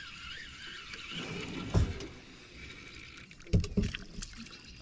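Handling knocks and thumps against a kayak: one heavy knock a little under two seconds in, then a quick cluster of knocks about three and a half seconds in, with faint clicks between.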